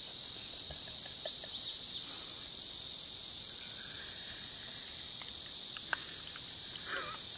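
Steady, high-pitched chorus of insects singing in summer woodland, with a couple of faint clicks.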